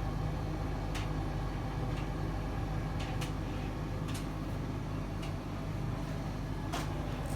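Servis Caress M2010 tumble dryer running mid-cycle with a full load: its motor and drum give a steady hum, with a few light clicks.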